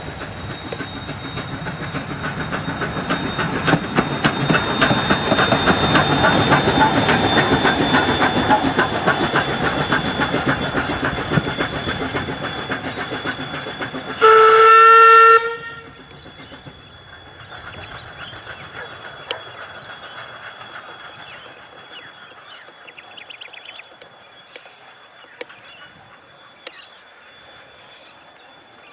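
Queensland C17 class steam locomotive No. 974 working past at close range: rhythmic exhaust beats and rail clatter that build to their loudest about six seconds in and then ease off. About fourteen seconds in, a single loud steam whistle blast lasts just over a second and cuts off sharply. After it, the train is heard only faintly in the distance.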